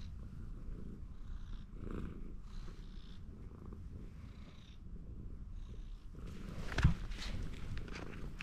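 Orange tabby cat purring steadily while being stroked. About six seconds in, rustling and a loud thump come in as the cat climbs onto a person's jacket-clad shoulder.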